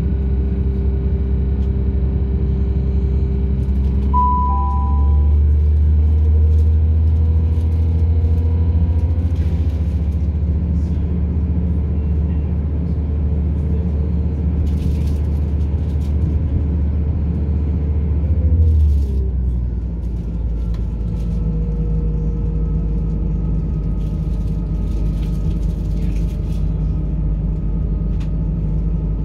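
Onboard a British Rail Class 170 diesel multiple unit under way: the underfloor diesel engine drones steadily under power, and its note drops abruptly about nineteen seconds in. A short two-note beep sounds about four seconds in, and scattered clicks from the track come through later.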